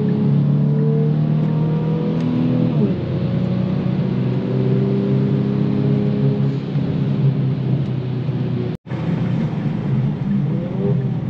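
Kia Stinger GT2's 3.3-litre twin-turbo V6 running under acceleration: the engine note rises, drops at a gear change about three seconds in, then climbs again. The sound cuts out for an instant near nine seconds.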